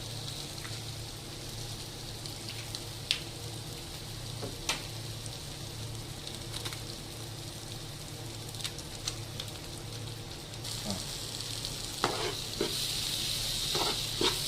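Chicken and masala frying in oil on a hot tawa: a steady sizzle with occasional spatula taps. About eleven seconds in, the sizzle turns louder, and the spatula taps and scrapes come more often near the end.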